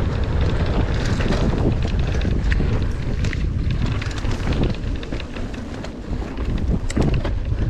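Wind buffeting a rider-mounted camera microphone as a mountain bike rolls along a dirt trail, with tyre rumble and scattered sharp clicks and rattles from the bike.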